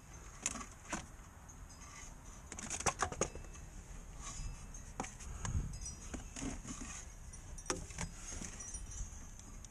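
Scattered light clicks, taps and small metallic clinks of hand work with tools and parts under a car, with a quick cluster of sharp clicks about three seconds in and a dull knock a couple of seconds later.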